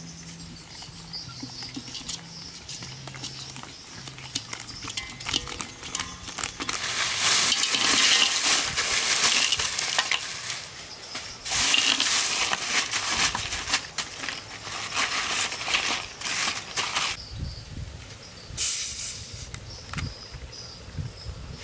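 Ice cubes poured from a plastic bag into a steel wok, clattering in two long spells. Near the end comes a short hiss as a plastic Coca-Cola bottle is twisted open.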